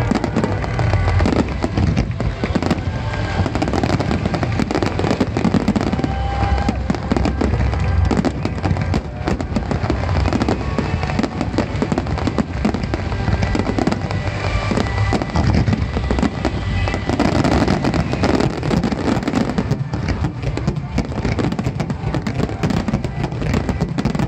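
Aerial firework shells in a finale barrage: many bursts overlap in a continuous, loud run of booms and crackles, with no pauses between them.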